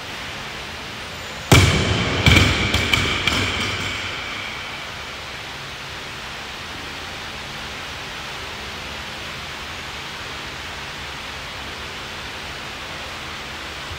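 Loaded barbell with rubber bumper plates dropped onto rubber gym flooring about a second and a half in: one heavy thud, then a few quicker bounces and plate rattles with a metallic ring that fades over a couple of seconds. A steady hiss runs underneath.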